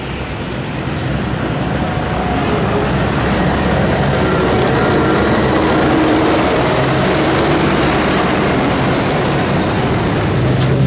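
Engine of a competition pulling vehicle running hard on a pull. It gets louder over the first few seconds, then holds steady and loud.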